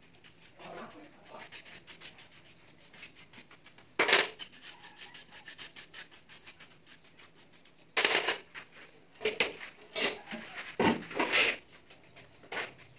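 Trowel scraping and rubbing across a sand-cement mortar bed as it is spread and levelled for floor tiles, with a louder scrape about four seconds in and a cluster of louder scrapes in the second half.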